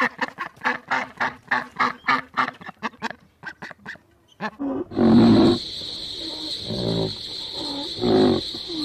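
Animal calls: a fast run of short repeated calls, about five a second, for the first four seconds or so. After a cut come a few longer, lower calls over a steady high hiss.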